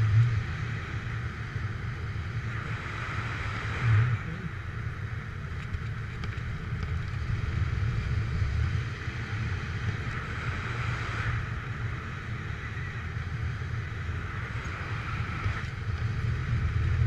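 Wind rushing and buffeting over the microphone of a paramotor pilot gliding under the wing, a steady low rumble with a hiss that swells and fades every few seconds and two brief harder gusts, one at the start and one about four seconds in.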